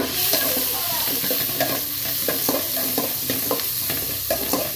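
Chopped onions, curry leaves, green chillies and chana dal sizzling in hot oil in a metal kadai while a metal spatula stirs them, scraping and tapping against the pan several times a second: the tempering stage of making upma.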